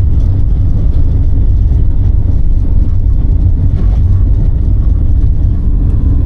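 A vehicle driving, with a loud, steady low rumble of engine and road noise.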